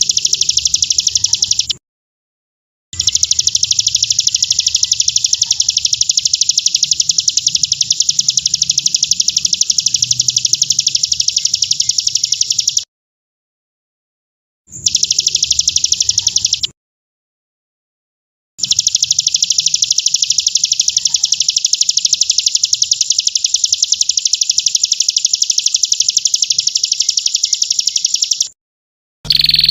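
A bird's high-pitched, very rapid trill, sung in long unbroken stretches of several seconds and cut off abruptly by short spells of dead silence, played as filler song for training white-rumped shamas.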